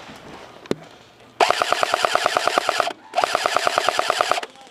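Airsoft M249 SAW replica firing two full-auto bursts, each a little over a second long with a short gap between, at roughly a dozen shots a second. A single sharp snap comes shortly before the first burst.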